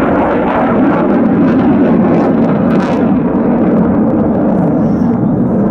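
Loud, steady jet roar of a MiG-29 fighter's twin RD-33 turbofan engines in flight.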